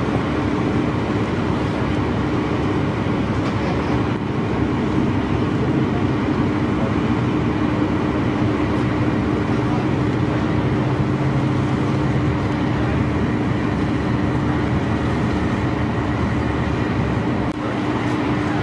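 Heavy lifting crane's machinery running steadily, an even mechanical drone with a constant hum, as the crane holds the wreck's hull up out of the water.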